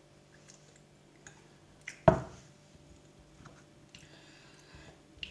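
Kitchen handling sounds: a few faint small clicks and one sharp knock about two seconds in, from a mug and sliced banana being moved about on a counter.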